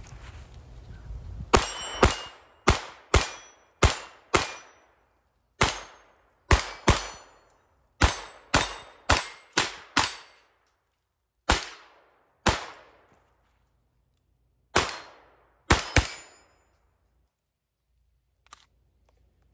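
A Kel-Tec CP33 .22 LR pistol firing Winchester M22 40-grain high-velocity rounds: about nineteen sharp shots at an uneven pace, some in quick pairs, with short pauses between. The string ends with what the shooter calls an out-of-battery discharge, and the firing stops after it; a faint click follows a couple of seconds later.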